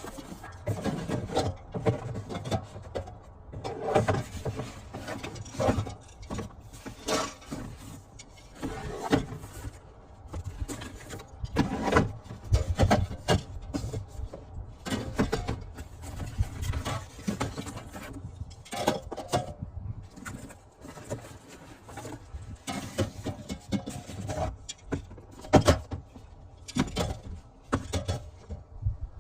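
Irregular handling noises from a parcel being unpacked: packaging rustling, with knocks as items are picked up and set down.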